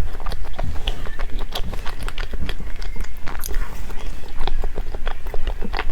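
Close-up sounds of a person eating: steady chewing and biting with many short, sharp, wet clicks, over a low steady hum.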